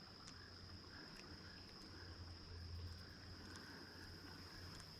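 Near silence of the outdoors, with faint insects: soft chirps repeating every half second or so over a steady high-pitched hum.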